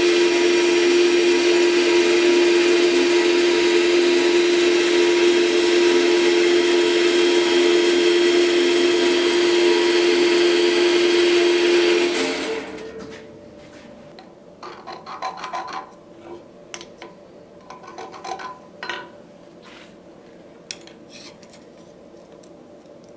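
Horizontal metal-cutting bandsaw running with a steady hum and hiss, cutting off abruptly about twelve seconds in. Then a couple of short bursts of metal scraping on metal.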